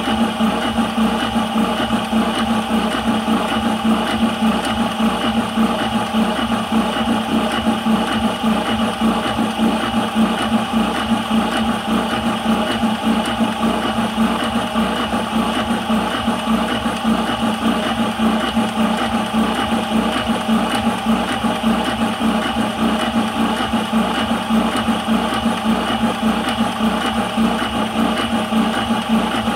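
High-pressure PCP air compressor running steadily under load with a fast pulsing hum, charging a 180cc airgun air cylinder late in the fill, past about 170 bar on the way to 200 bar.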